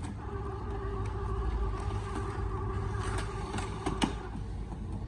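Canon TS6130 inkjet printer's mechanism running with a steady motor hum, then a sharp click about four seconds in as the paper cassette is pushed home.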